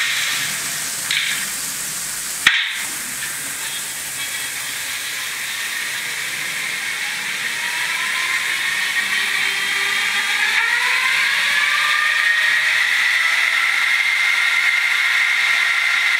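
Sound decoder of a Fleischmann BR110 N gauge electric locomotive model playing its start-up sound through its small onboard speaker. A hissing background, a sharp click about two and a half seconds in, then whining tones that rise from about eight seconds in and settle into a steady high hum as the locomotive's equipment comes up to speed.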